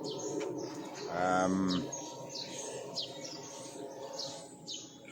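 Birds chirping: a string of short, high, falling chirps, several a second apart. About a second in there is a brief low pitched call lasting under a second.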